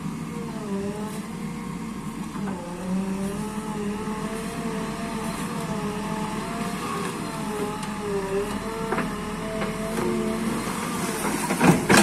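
JCB 3DX backhoe loader's diesel engine running under load as the machine drives through river water, its pitch dipping and rising again and again with the throttle. A few sharp knocks come near the end as the backhoe bucket swings down into the water.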